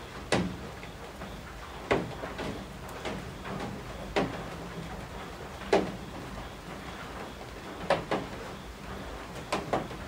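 Steady rain hiss with heavy drops from the roof eaves knocking on a hard surface every second or two, irregularly, sometimes two in quick succession.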